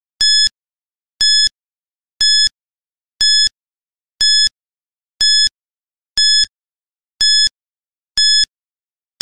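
Countdown timer sound effect: short high-pitched electronic beeps, one per second, nine in a row.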